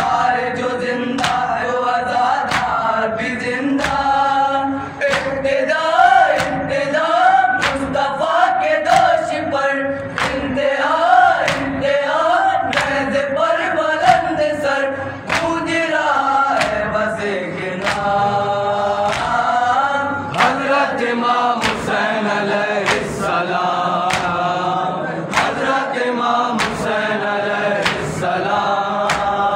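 Group of men reciting an Urdu noha in unison into microphones, a mourning lament for Imam Hussain, with a steady beat of sharp slaps from the crowd's matam (chest-beating) keeping time.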